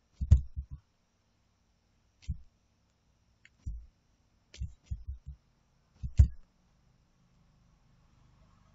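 Scattered short taps and clicks, about nine in small clusters, from a computer keyboard and mouse as numbers are typed into form fields.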